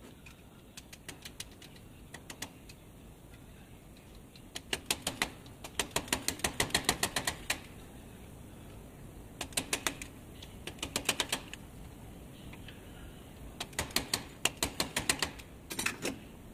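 Runs of quick metal clicks, about four or five a second, with short pauses between the runs. They come from a hacksaw blade and its clamp being handled and fitted into a homemade reciprocating-saw attachment.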